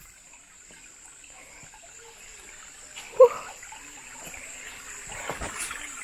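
Shallow stream trickling over rocks, growing louder toward the end, with a steady high-pitched whine behind it. A short, sharp sound stands out about three seconds in.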